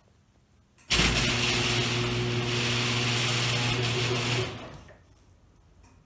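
Motorized garage door opener starting suddenly and running with a steady hum as it lifts the door, then winding down about three and a half seconds later.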